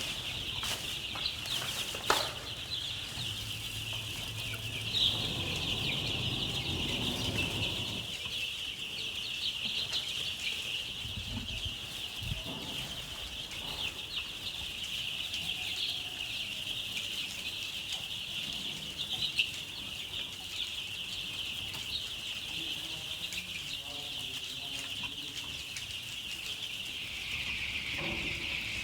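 A large flock of chickens, many birds peeping and clucking at once in a continuous high-pitched chorus with occasional louder calls. A low hum runs under it for the first several seconds.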